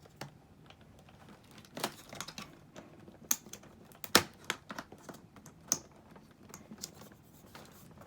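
Scattered hard plastic clicks and knocks as a plastic wrist rest is pushed against the front edge of a Corsair K55 RGB keyboard, the loudest knock about four seconds in. The rest does not lock into place.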